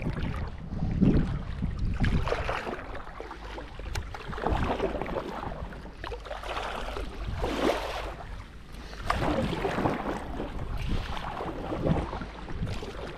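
Sea kayak paddle strokes splashing in the water, a surge of sloshing about every second or two, with wind buffeting the microphone.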